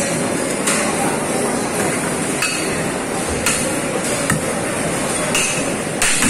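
Knife blade striking through albacore tuna loin on a cutting table, with sharp metallic clinks of a knife being honed on a sharpening steel, about one blow a second at an uneven pace, over a steady market din.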